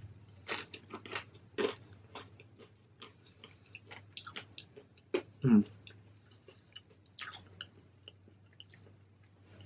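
Close-up chewing of a bite of crispy thin-crust pepperoni pizza: a run of irregular crunches as the crust breaks up, with a short hum about five and a half seconds in.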